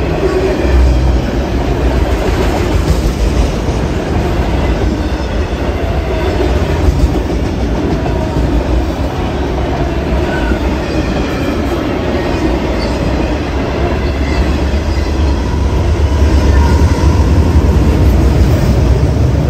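Freight train of autorack cars rolling past close by: a loud, steady rumble of steel wheels on rail, swelling slightly near the end.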